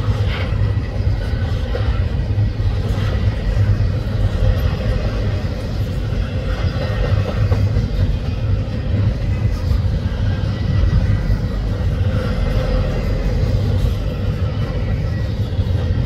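Double-stack container well cars rolling past close by: a loud, steady low rumble of steel wheels on rail.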